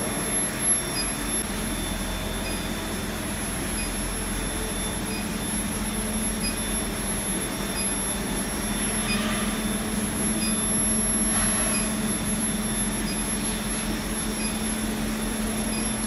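JLZ 70 kW induction heating machine powering a small copper-melting crucible furnace: a steady electrical hum with a thin, high whine held at one pitch, over a constant hiss.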